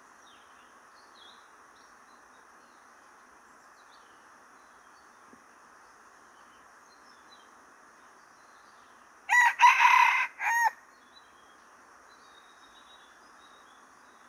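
A rooster crows once, loud and short, a little over a second long, about nine seconds in. Faint bird chirps sound in the background.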